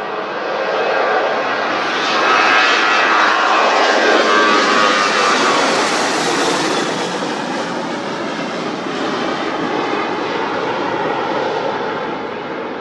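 An aircraft's engines passing close by: the noise swells, peaks about two to six seconds in with a whine that falls in pitch as it goes past, then fades slowly.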